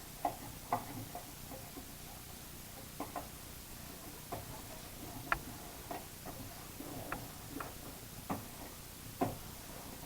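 Faint, scattered light clicks and taps of hands handling a cardboard replacement for a microwave oven's mica waveguide cover, fitting it into place inside the oven cavity. There are about a dozen irregular ticks, the sharpest about five seconds in and just after nine seconds.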